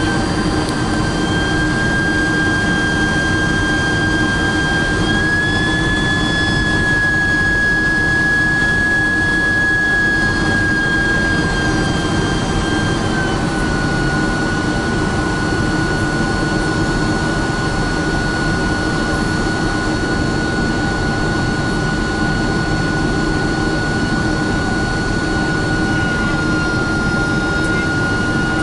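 Boeing 767-400's turbofan engines heard from inside the cabin on approach: a steady loud rush with a high whine on top. The whine steps up slightly about five seconds in and drops back about halfway through, following changes in engine thrust.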